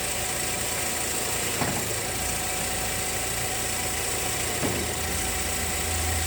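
Volkswagen Gol G6 engine idling while the steering is turned to full lock, with the power-steering belt hissing as it slips on the pump pulley. The belt is a stretch-fit elastic belt with no tensioner, and it has gone loose.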